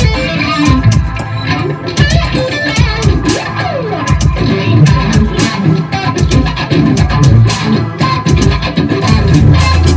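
Electric guitar played through ENO effects pedals: fast lead playing with many quickly picked notes, a falling slide about three and a half seconds in, and a held low note near the end.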